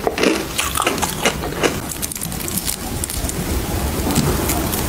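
Close-miked crackling and clicking of clear edible ice blocks being handled: sharp clicks over the first two seconds, then a dense, fine, steady crackle.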